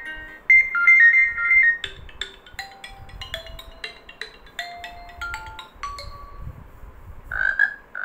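Phone speaker playing short previews of a Redmi phone's built-in ringtones one after another: brief electronic melodies of bright chiming notes. Near the end a croaking frog sound starts.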